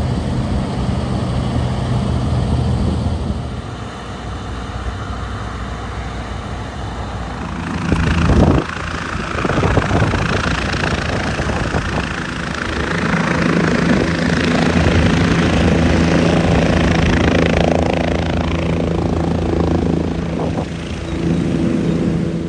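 A large engine running steadily, its pitch shifting several times, with a rushing noise building through the middle and a sharp burst about eight seconds in.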